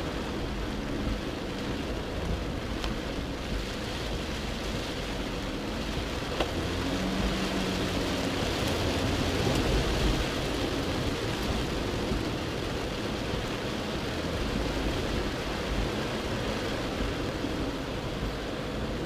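Heavy rain beating on a Mercedes G300 (W461) and water hissing under and around it as it drives through flooded streets, heard from inside the cabin over the low rumble of its OM642 V6 diesel. About halfway through the noise swells as a wave of spray washes across the windscreen.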